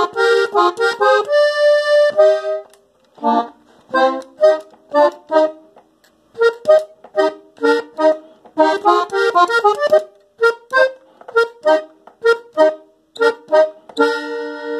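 Hohner diatonic button accordion, in E-flat, playing a norteño melody on the treble buttons in short, detached notes and chords, a few held longer, with a couple of brief pauses.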